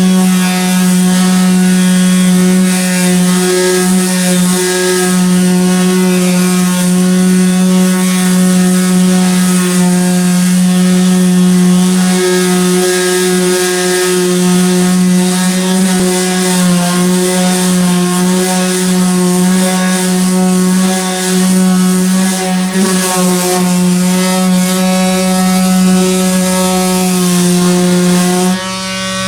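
Electric power sander running steadily at one constant pitch while sanding old paint off a car's body panels. It dips briefly near the end and picks up again.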